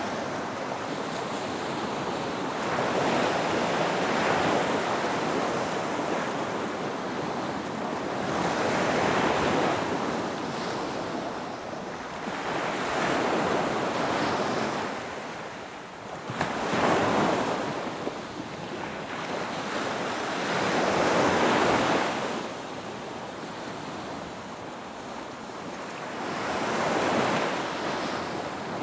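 Ocean waves breaking on a beach, one after another, each one swelling up and falling back about every four to five seconds, six in all.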